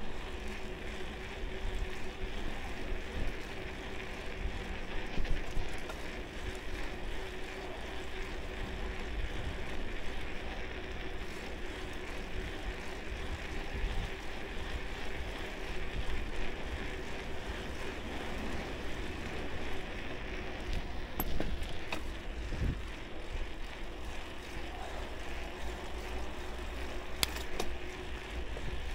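Bicycle riding heard through an action camera's microphone: a steady low rumble of tyres and wind buffeting, with a faint steady hum and a few light clicks near the end.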